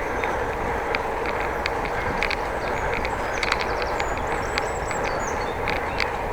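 Steady wind and road noise from riding a bicycle, with scattered faint ticks and a few thin, high chirps about two-thirds of the way through.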